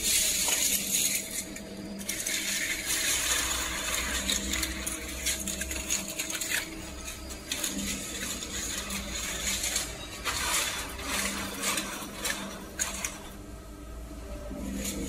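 Metal tubes and fins of an intercooler core clinking and rattling as they are handled and set in a core builder machine, in several bouts of small metallic clicks, over a steady machine hum.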